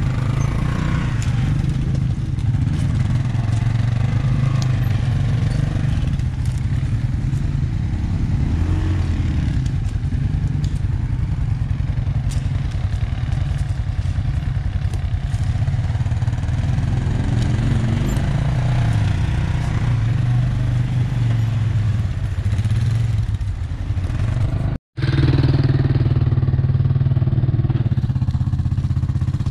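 ATV engine running at low speed, its pitch rising and falling twice as the throttle is worked.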